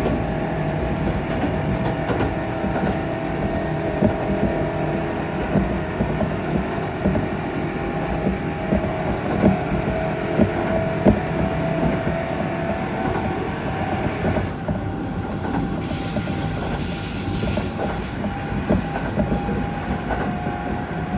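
Electric train's traction motor whining with an abnormal noise, heard aboard over the rumble of wheels on track: the motor sounds clearly wrong. A hissing noise joins for a few seconds just past the middle.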